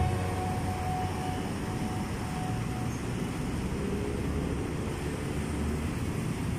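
Steady road traffic noise from passing cars and motorcycles, an even low rumble without distinct events.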